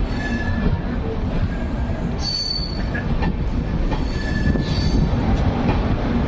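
Indian Railways express passenger train rolling past, a loud steady rumble of wheels on rail with several brief high-pitched metallic wheel squeals.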